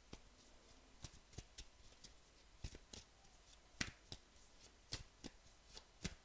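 Tarot cards being handled in the hands: faint, irregular soft clicks and taps, about two a second.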